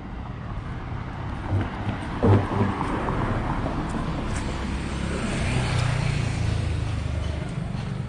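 A car passing on the street, its engine and tyre noise swelling and fading about halfway through, over the low rumble of city traffic. Two brief thumps come a couple of seconds in.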